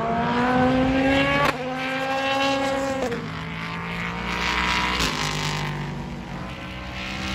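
Racing engine running at high revs, its pitch climbing slowly and then dropping in steps about one and a half and three seconds in, like upshifts.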